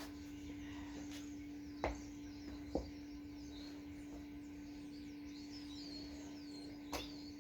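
Faint birdsong of many short chirps over a steady hum, broken by three short sharp knocks: two close together a couple of seconds in and one near the end.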